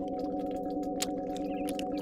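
Synthetic, heavily processed drone of several steady low tones with a fast flutter, broken by sharp clicks and short high chirps.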